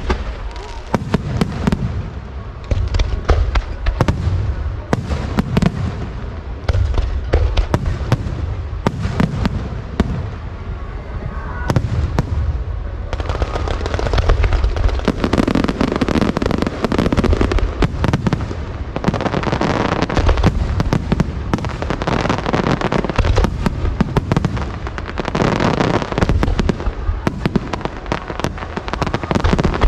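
Aerial fireworks display: a continuous, rapid run of shell bursts, deep booms mixed with sharp reports, with thicker crackling in the second half.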